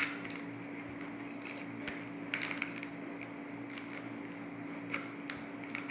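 Tiny bubbles of a silicone Pop-It fidget toy being pushed in with a fingertip: a handful of faint, scattered pops and clicks, the bubbles too small to press easily, over a low steady hum.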